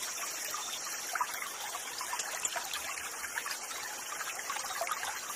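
Quiet, steady trickle of running water from a small river, with a steady high hiss above it.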